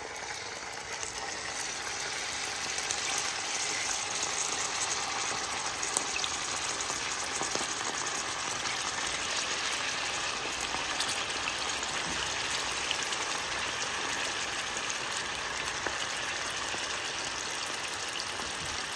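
Raw chicken pieces sizzling in hot oil in a frying pan, a steady crackling hiss with occasional pops that grows louder over the first few seconds as more pieces go in, then holds steady.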